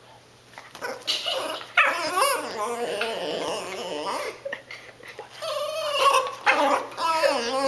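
A small dog whining in long, wavering cries, starting about a second in, as she begs for food.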